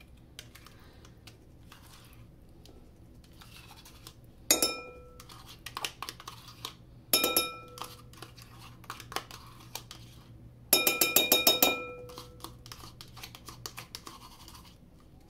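A metal spoon clinking against a white ceramic bowl, which rings briefly after each strike. There is one clink about a third of the way in and another about halfway, then a quick run of about eight taps later on, as yogurt is knocked off the spoon. Between the clinks, the spoon scrapes softly inside a plastic yogurt tub.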